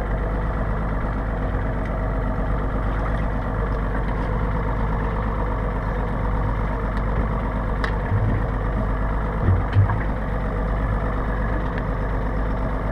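Boat engine idling steadily, with a few short, dull low thumps in the second half.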